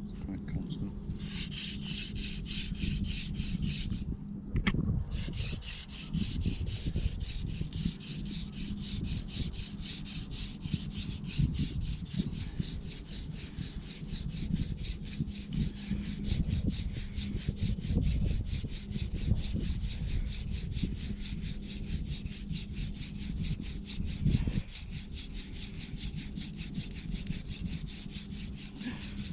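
Hand-drill fire by friction: a wooden spindle spun rapidly back and forth between the palms, grinding into a wooden hearth board with a steady, rhythmic wood-on-wood rubbing, briefly broken about four seconds in. The grinding is building up a pile of hot wood dust toward an ember.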